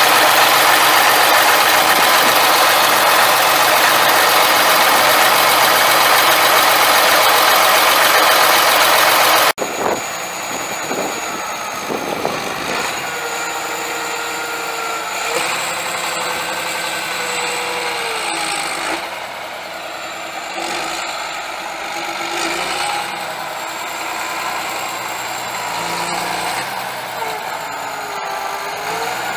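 John Deere 8130 tractor's 9.0L six-cylinder turbo diesel engine running. It is loud and rushing for about the first nine seconds, then after an abrupt cut quieter and steadier, with tones that waver slightly in pitch.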